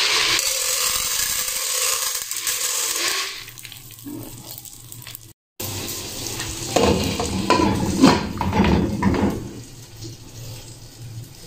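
Butter sizzling in a pot as popcorn kernels are tipped in, the sizzle loud for about three seconds and then dying down. After a short break, a glass pot lid is handled and set on the pot with a few clattering knocks.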